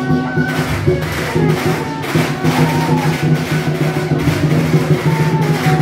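Lion dance percussion: drum, gongs and cymbals playing continuously with dense, rapid strikes over a steady ringing tone.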